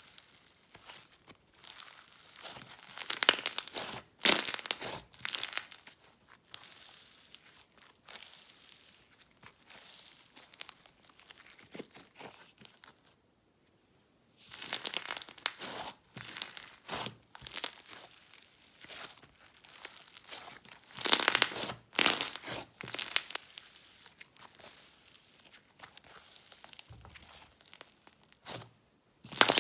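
Crunchy white glue snow fizz slime being squeezed, pressed and stretched by hand, giving irregular crackling, crinkly crunches that come and go in bursts. There is a short break about 13 seconds in.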